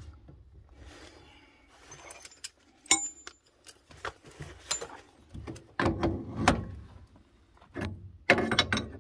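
Hands working a brass three-port valve and its actuator head among copper pipes: scattered clicks, knocks and rubbing of metal parts. There is a sharp click about three seconds in and louder bunches of knocks around six and eight seconds.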